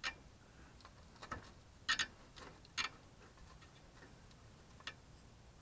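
A handful of sharp, irregular clicks from hands working the hose and wiring connections at a 2009 Prius's coolant heat storage tank water pump; the loudest is a quick pair about two seconds in.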